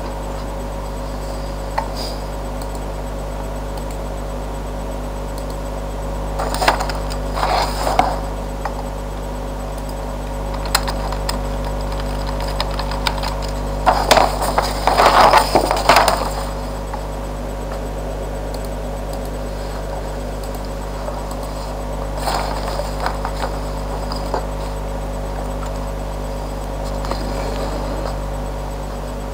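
Packaging rustling and being handled as a pair of headphones is unpacked, in scattered bursts with the longest and loudest run in the middle, over a steady electrical hum.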